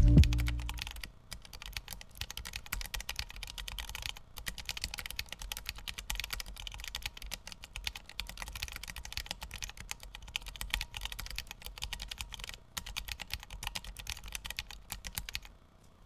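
Fast, steady typing on a small mechanical keyboard with Kailh Choc low-profile switches in a 3D-printed case: a dense patter of key clacks that stops just before the end.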